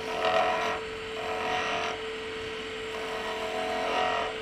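Skew chisel cutting a V groove into a spindle spinning on a wood lathe: three short scraping cuts, over the steady hum of the lathe.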